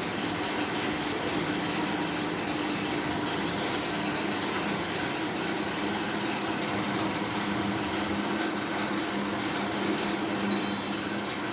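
Stick (SMAW) welding arc crackling and hissing steadily as a 2.6 mm electrode burns along a V-groove joint in the vertical 3G position. A brief high-pitched chirp sounds about ten and a half seconds in.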